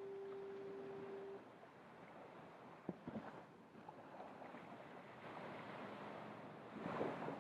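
A fog horn holds one steady, pure note that cuts off about a second in, over the continuous wash of surf. There is a sharp tap about three seconds in, and a wave surges up loudly near the end.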